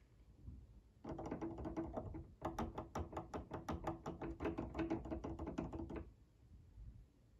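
Tonearm of an IKEA Obegränsad turntable rattling in quick clicks as it is wiggled back and forth by its counterweight, from about a second in until about six seconds, with a short break early on. The clicking is play in a wobbly arm bearing.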